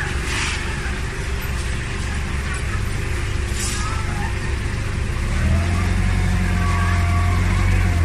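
Heavy machinery running: a steady low mechanical drone that grows louder and takes on a stronger, steady humming tone from about five and a half seconds in.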